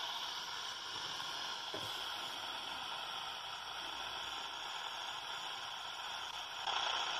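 Retekess PR15 pocket radio on the AM medium-wave band, hissing with static through its small speaker while being tuned between stations. A brief falling whistle comes about two seconds in, and the static gets louder near the end.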